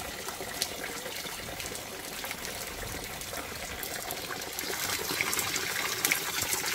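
A thin stream of spring water pouring from a leaf spout into a plastic container, filling it with a steady splashing trickle that grows somewhat louder over the last two seconds.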